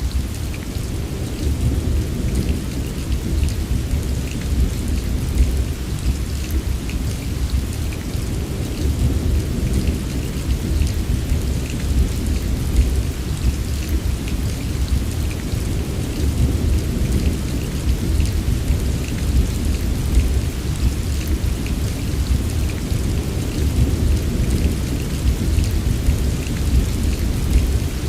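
Steady rain, with many small drop ticks over an even hiss, above a continuous low rumble of thunder that swells and eases without any sharp clap.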